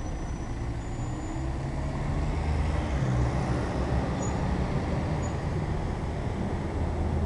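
Steady low rumble of a motor vehicle engine running, with street traffic noise.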